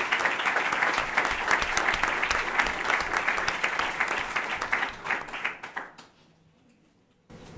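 Audience applauding, fading away about six seconds in.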